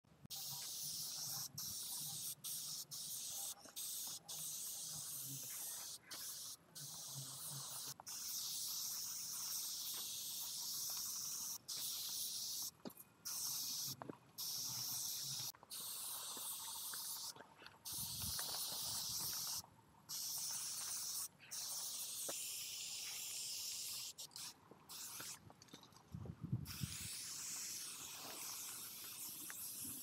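Aerosol spray paint cans hissing in long sprays, cut off briefly many times as the nozzle is released and pressed again. A low thump comes a few seconds before the end.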